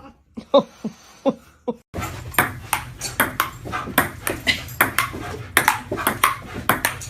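Repeated sharp knocks with a short ring after each. A few come in the first two seconds, then a faster run of about two to three a second plays over a steady low hum.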